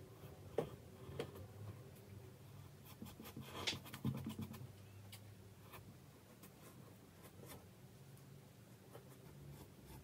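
Faint scratching and tapping of a paintbrush dabbing acrylic paint onto canvas, with scattered sharp clicks and a busier patch of strokes about four seconds in, over a steady low hum.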